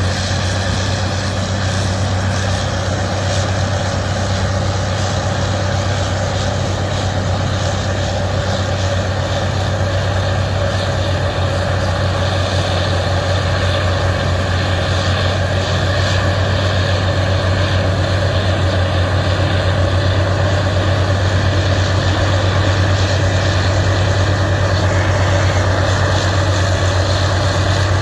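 Heavy diesel engine of an earthmoving machine (bulldozer or excavator) running steadily with a deep hum, getting slightly louder about halfway through.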